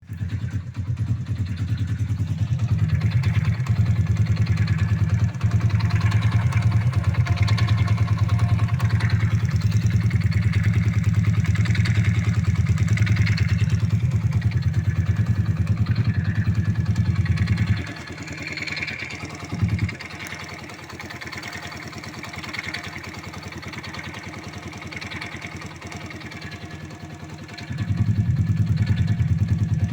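Moped engine idling, with a whistling, rustling noise from the engine over its steady low running. The owner hears this rustle only when the engine is cold; it becomes barely audible once warm. The low running note drops away for several seconds partway through while the higher whistling carries on, then returns near the end.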